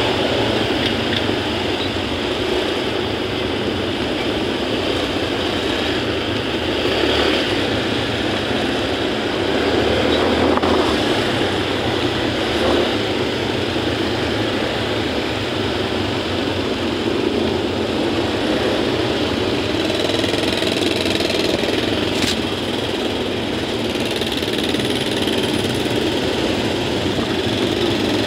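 Steady noise of slow, dense motorcycle and car traffic heard from a motorcycle in the jam: many small engines running together with road noise. A brief sharp click about 22 seconds in.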